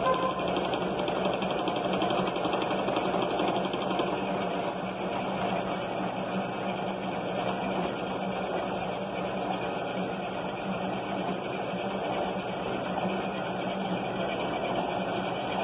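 Motorized kite-line winding machine running steadily, its motor spinning a can spool as white kite line winds onto it, a constant even hum with a steady low tone.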